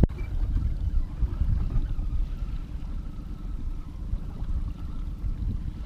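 Low wind rumble buffeting the microphone, with a faint wash of lake water, and a faint steady high whine from about a second in.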